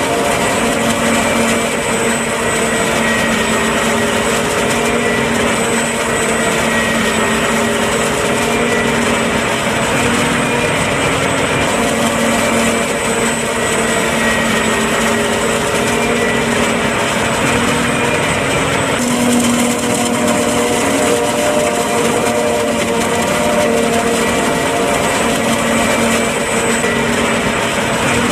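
John Deere 8400i self-propelled forage harvester chopping standing corn: its Liebherr V12 engine and chopper running steadily under load. Several held whining tones drift slightly in pitch over a dense mechanical noise.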